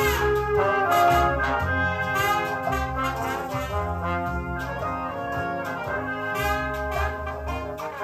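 Recorded music played back over hi-fi floor-standing loudspeakers, with a moving bass line and regular drum hits. It is being switched between the Sony TC-K555ESL cassette deck's tape playback and the source, for comparison.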